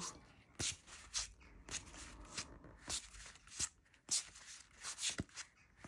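Tarot cards being handled and leafed through: a string of short, irregular card flicks and soft slides.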